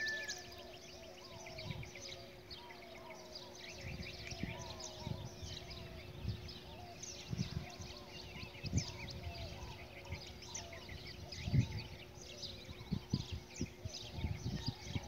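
Dawn chorus of many birds chirping and calling at once, with a steady low hum underneath and scattered dull thumps.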